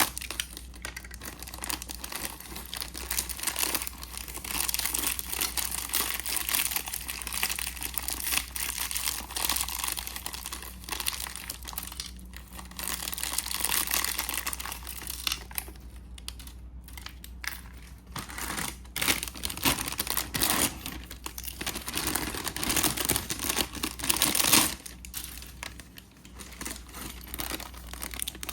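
Plastic packaging of a snap-fit model kit crinkling and being torn open in irregular bursts, with short clicks of parts being handled.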